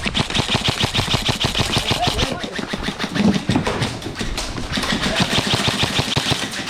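Airsoft rifles firing rapid full-auto bursts of BBs, a fast, even clatter in two long stretches near the start and in the second half.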